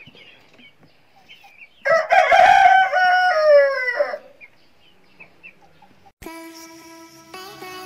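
A rooster crows once, loudly, about two seconds in; the call lasts about two seconds and falls in pitch at the end, over faint chirping of small birds. Music starts abruptly near the end.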